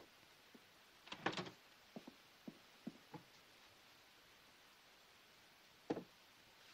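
Soft knocks and thumps of a door and footsteps over a faint hiss on an old film soundtrack: a louder clatter about a second in, a few light steps, and a single thump near the end.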